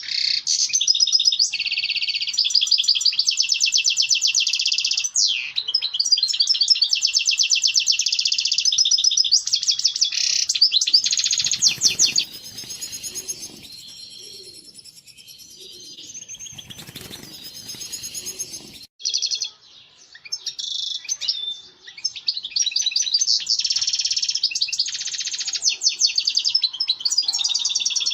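European goldfinch song: fast, continuous twittering and trills, with a quieter break in the middle. It is the breeding-season mating song that keepers play to stimulate goldfinches to breed.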